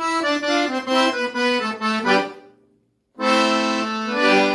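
Accordion playing the song's closing phrase: a quick run of notes stepping downward, a break of about half a second, then a held full chord.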